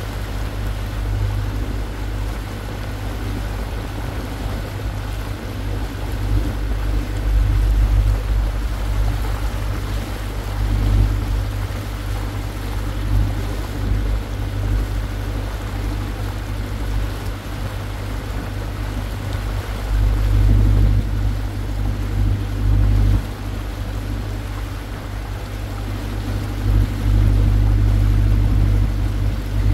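Small passenger water taxi under way, its engine running steadily with water washing along the hull; the low rumble swells and drops irregularly.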